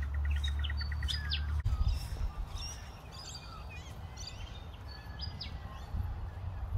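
Birds chirping and calling, with short whistles and a fast, even trill that stops about a second and a half in, over a low rumble.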